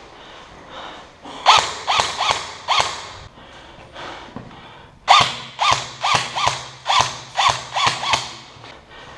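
Airsoft rifle fired in rapid single shots at close range: four cracks about half a second apart, a pause of about two seconds, then a string of about eight more. Each crack has a brief ring after it.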